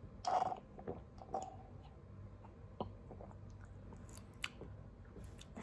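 Mouth sounds of drinking coffee from a mug: a sip about a quarter of a second in, then soft swallowing and small lip and tongue clicks.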